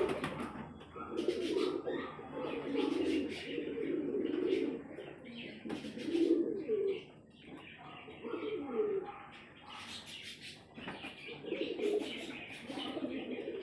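A flock of domestic pigeons of the Murshidabadi girebaz high-flying breed cooing together, the low warbling coos overlapping and coming in waves.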